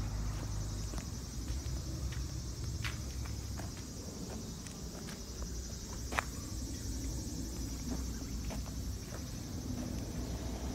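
Ryobi RCV-330 tiller's small two-stroke engine idling with a steady low hum, a steady high hiss above it, and a few light clicks, one sharper about six seconds in.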